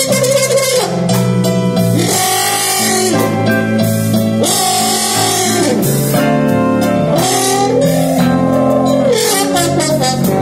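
Live blues band playing, with electric guitar, keyboards and drum kit under a lead line whose notes slide up and fall back again and again.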